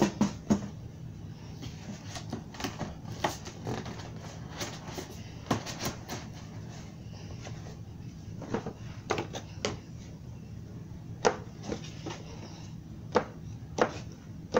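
Irregular light clicks and knocks over a steady low hum, with the loudest knocks near the end.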